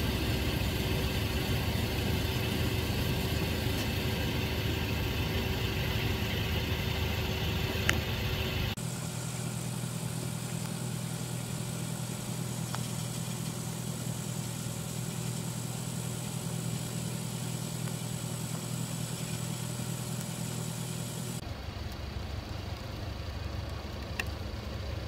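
Heavy rain pouring down steadily, with a car engine idling close by, its low hum clearest through the middle stretch. The sound changes abruptly about nine seconds in and again a few seconds before the end.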